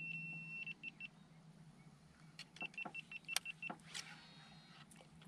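Electronic beeping: one long high beep that breaks into three short beeps, then a rapid run of about seven short beeps with sharp clicks and knocks mixed in.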